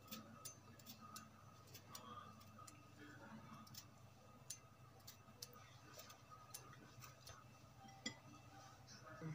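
Faint, irregular clicks of a metal fork pricking raw peeled potatoes, over near silence. A slightly louder tick about eight seconds in as a pricked potato is set down on a glass plate.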